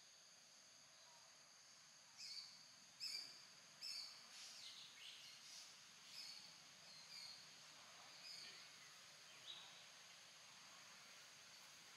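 Faint outdoor ambience: a steady high insect drone, with a run of short high chirps starting about two seconds in and thinning out near ten seconds.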